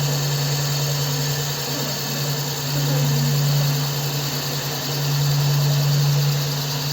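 CNC wood lathe running, a steady low motor hum that swells and eases slowly every couple of seconds over a fainter hiss.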